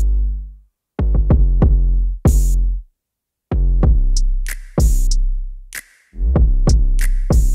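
Electronic background music: a drum-machine beat with deep bass notes and short crisp hits, cutting out to silence for brief moments a few times.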